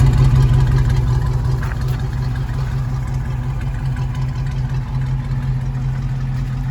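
A 1969 International Scout 800A's engine idling steadily with a low exhaust note while it warms up after a cold start.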